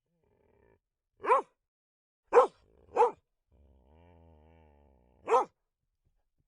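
A dog barking four times in short, single barks. There is a low, quiet growl between the third and fourth bark.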